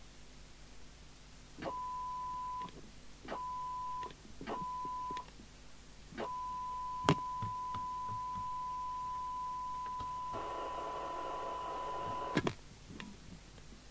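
Steady single-pitch test tone from a Falcon FCB1281 FM CB radio keyed to transmit into the test set, starting with a click at each keying: three short bursts of about a second, then one lasting about six seconds. A rough buzzy noise joins the tone for the last two seconds, and it stops with a sharp click.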